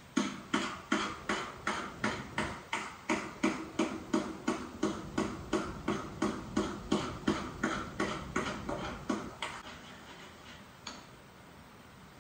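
Metal spoon stirring in a steel pot on a stove, knocking and scraping against the pot in a steady rhythm of a little under three strokes a second, stopping about nine seconds in. One lone click follows a little later.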